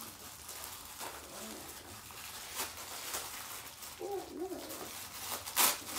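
Plastic packaging rustling and crinkling as a small gift item is unwrapped, with a brief wavering hum from a voice about four seconds in and a sharper, louder crackle near the end.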